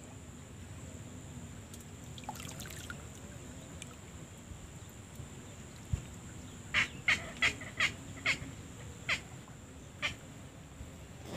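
A bird calling a quick series of about eight short, sharp notes, each dropping slightly in pitch, over about three seconds in the second half. A single dull thump comes just before the calls.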